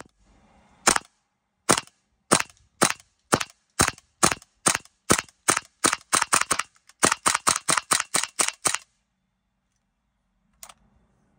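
Airsoft AK-pattern rifle with a homemade suppressor firing sharp single shots, about two a second at first, then faster strings of about five a second, with one last fainter shot near the end.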